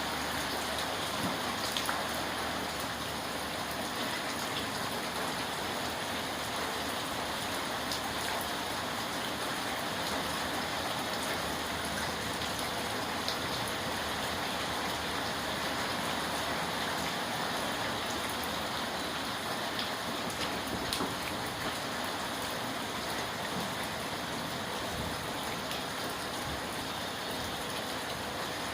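Steady rain falling, a continuous even hiss with a few faint drop ticks now and then.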